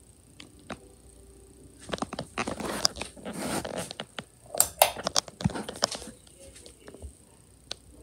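Handling noise: rustling and a run of sharp clicks and knocks from about two to six seconds in, with a few isolated clicks before and after.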